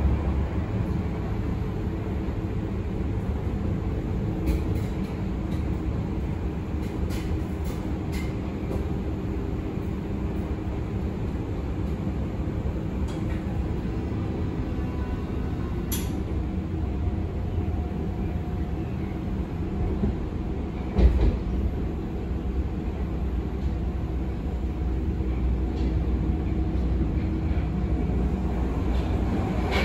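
Berlin U-Bahn F90 three-phase AC train running along the line, heard from on board: a steady rumble of wheels on rail with steady motor tones. A few light clicks come through, and there is a single louder knock about 21 seconds in.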